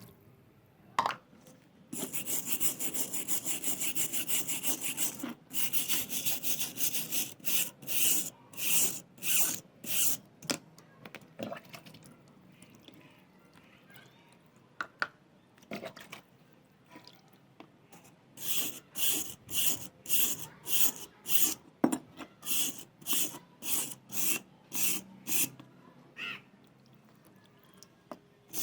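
Hand-worked scraping strokes on the rusty steel file being restored, as in filing or sanding off rust: a quick run of strokes, then slower strokes about two a second, with a pause in the middle and a few sharp knocks.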